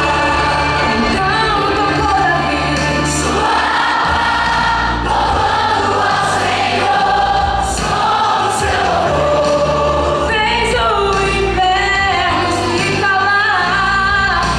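Choir singing a gospel song, the voices moving through sustained, sliding phrases.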